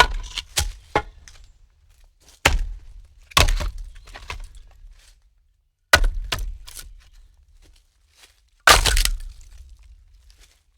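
Wooden logs being dropped and stacked onto a pile, knocking against each other in five clattering clusters of one to several hits, with a pause of a second or two between them.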